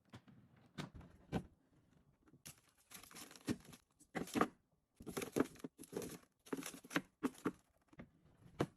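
Plastic food packaging crinkling and rustling in repeated short bursts as it is handled, with a couple of light knocks near the start.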